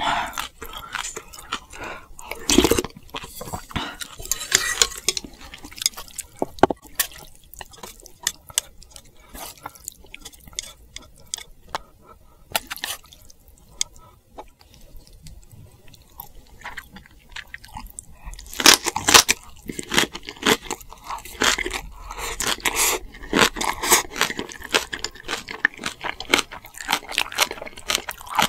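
Close-miked eating: steady chewing and crunching of food, with wet squishing sounds. The crunching is densest and loudest in the last third.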